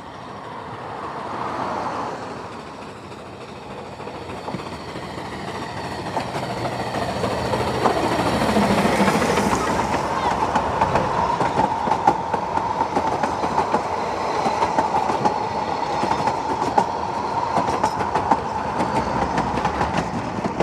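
Narrow-gauge steam train passing close by: the locomotive goes by about eight seconds in with a falling sweep of sound, then the carriages roll past with a clickety-clack of wheels over the rail joints and a steady ringing tone from the wheels on the rails.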